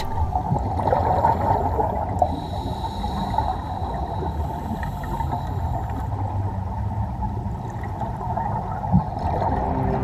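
Muffled underwater rush and gurgle of scuba divers' exhaled bubbles, heard through a camera's waterproof housing.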